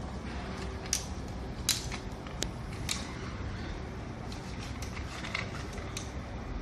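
Plastic latch clips on a Loreda trail camera's case snapping open in four sharp clicks between about one and three seconds in, then softer clicks as the opened case is handled. A steady low hum runs underneath.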